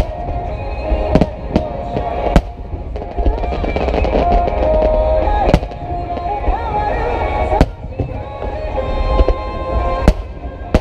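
Aerial fireworks bursting: about six sharp bangs at irregular intervals over a low rumble, with music playing throughout.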